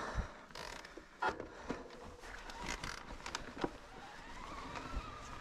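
Trek Rail 5 electric mountain bike ridden over a rough trail: steady rolling tyre noise with a string of sharp knocks and rattles from the bike. A faint wavering whine comes in near the end.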